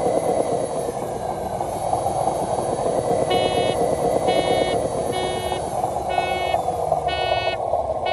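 Steady whine of a radio-controlled model truck's electric drive motor and gearing working under load, with six short tooting beeps about once a second starting about three seconds in.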